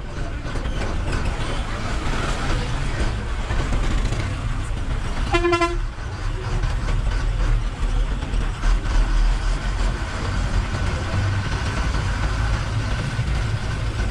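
Bus diesel engine running with a steady low rumble and road noise, heard from inside the cab while driving in traffic. A vehicle horn sounds once, briefly, about five seconds in.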